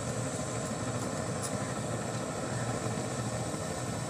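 Steady background roar: a low rumble with hiss above it, even throughout, with no distinct knocks or events.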